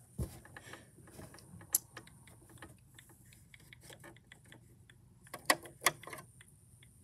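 Irregular light clicks and taps of small objects being handled and set down, with a sharp click just under two seconds in and two louder knocks about five and a half and six seconds in.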